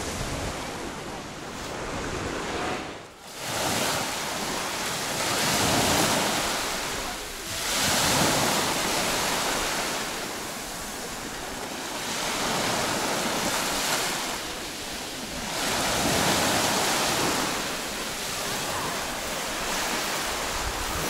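Small sea waves washing in on a fine pebble shore: the surf swells and fades every few seconds, with a brief dip about three seconds in.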